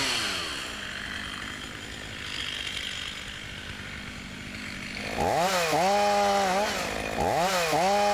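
A chainsaw drops to idle and runs steadily at idle, then is revved up twice in the second half, each rev rising, holding and falling back.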